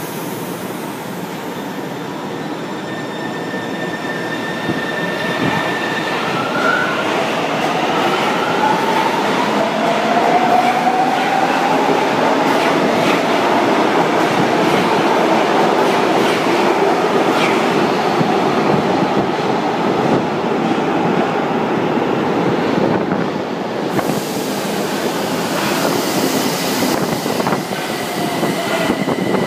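São Paulo Metro train pulling out of an underground platform: the rail noise grows louder over the first ten seconds or so while the motor whine rises in pitch as it gathers speed, then runs steadily. Near the end another train runs past with a thin, steady wheel squeal.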